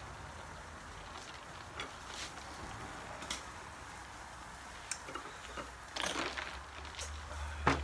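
Scattered light clicks and clacks of shells and tableware being handled, over a low steady rumble. A brief flurry of louder clatter comes about six seconds in, and a single sharp clack near the end.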